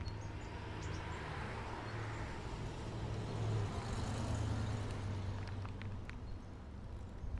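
A car passing on the road, its tyre and engine noise swelling and then fading over a few seconds, over a steady low rumble of wind and road noise from the moving bicycle.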